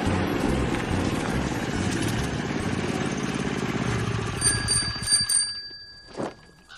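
A small minibike engine running as the bike pulls up. About four and a half seconds in, a small bell rings, and the engine then dies away, with a single click about a second later.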